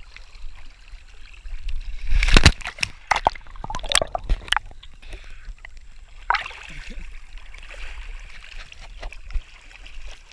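Creek water sloshing and splashing close against a camera held at the water's surface, with a run of loud splashes about two to four and a half seconds in and another about six seconds in.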